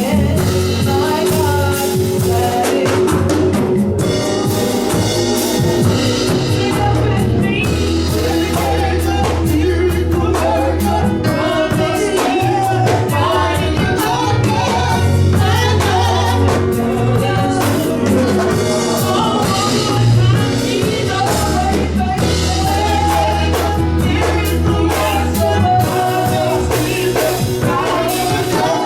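Gospel music with singing over a drum kit and a bass line of long held notes.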